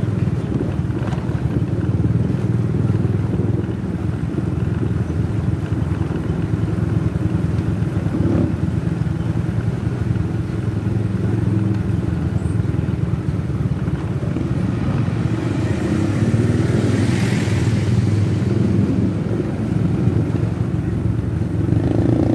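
Motorcycle engine running steadily while riding along a street. A brief hiss rises and fades about two-thirds of the way through.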